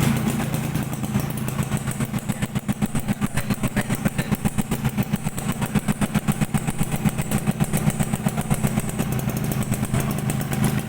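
Suzuki Tornado's two-stroke single-cylinder motorcycle engine idling steadily, with a regular pulsing beat.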